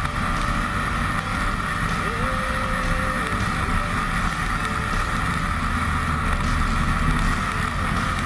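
Engine of a small off-road vehicle running steadily while riding, with wind rushing past; about two seconds in, a faint engine tone rises briefly and then holds.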